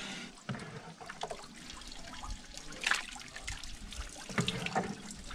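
Whey being scooped with a plastic dipper from a cloth-lined bucket of freshly set tofu curds and poured into a basin: trickling and pouring water with short splashes, the loudest about three seconds in.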